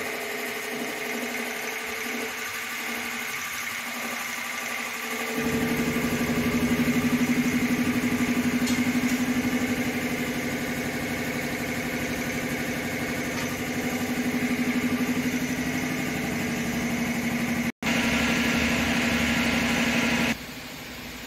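Electric belt-driven air compressor running with a steady hum, becoming suddenly louder about five seconds in. There is a brief break in the sound near the end.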